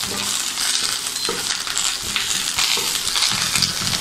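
Peanuts and curry leaves sizzling in hot oil in a nonstick pan, stirred with a spatula.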